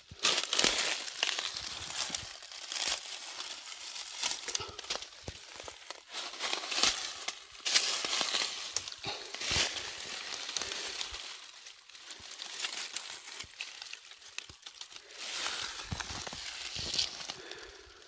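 Rustling and crackling of dry leaves, twigs and brush as someone moves through forest undergrowth, with many irregular sharp cracks.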